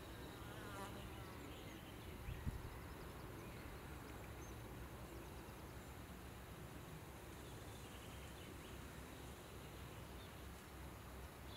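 A bee buzzing, faint and steady. A brief low bump about two and a half seconds in.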